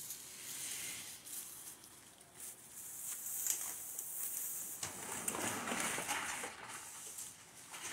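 Light rain hissing, with scattered soft footsteps on wet grass and gravel.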